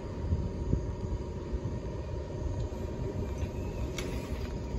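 Low steady rumble of a Nagano Electric Railway 8500 series electric train standing at the platform, with a faint steady high tone and a sharp click near the end.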